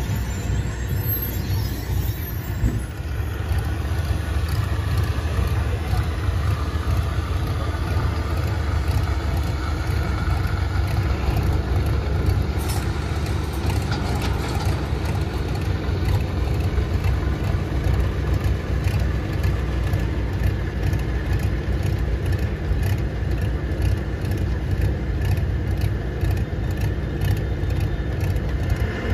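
A large diesel engine running steadily at low speed, a continuous low drone with no break.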